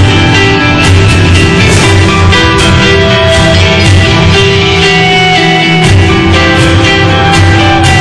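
Instrumental music, loud and even, with held notes and percussive hits.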